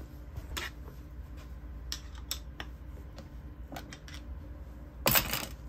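Small metal clicks and taps as a screwdriver works at the terminal end of a Nikko 24 V starter motor clamped in a bench vise, then a louder brief clatter about five seconds in.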